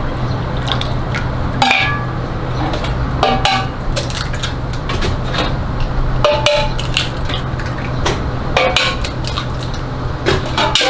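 Metal cooking utensils clicking, clinking and scraping against metal, several strikes ringing briefly, over a steady low hum.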